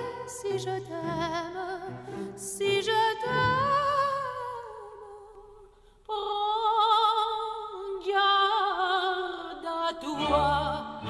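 Operatic aria played back over electrostatic loudspeakers and recorded in a listening room: a woman's voice sings long notes with wide vibrato over a light orchestral accompaniment. One held note fades away about halfway through, and the singing comes back strongly around six seconds in.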